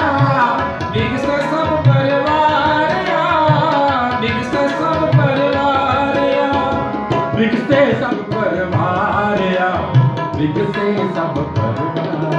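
Sikh kirtan accompaniment with two harmoniums playing a sustained reedy melody over a tabla keeping time. The tabla's deep bass drum strokes fall about every second and a half under lighter treble strokes.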